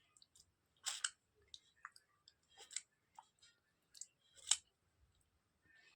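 Wet smacking and clicking of fingers being licked and sucked clean, in a handful of separate smacks. The loudest come about a second in and about four and a half seconds in.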